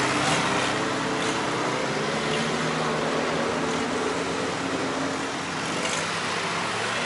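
Off-road vehicle engine running steadily, with a noisy hiss over it.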